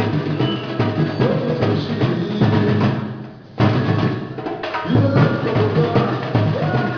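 A batucada-style percussion group drumming a steady beat along with music. The playing drops away for a moment about three seconds in, then comes back in all together.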